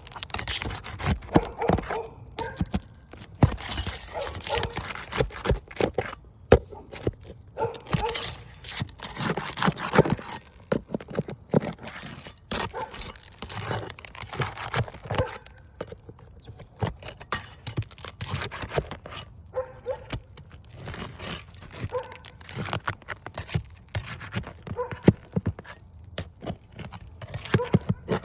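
A dog barking and whining now and then over a steady run of clicks, scrapes and knocks.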